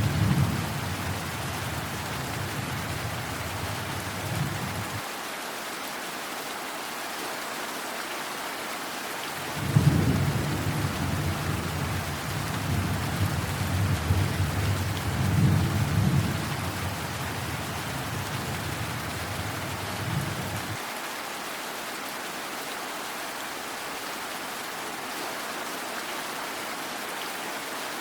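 Steady rain falling, with rolling thunder. A low rumble dies away in the first five seconds. About ten seconds in, thunder breaks sharply and rolls and swells for about ten seconds before cutting out, leaving the rain alone.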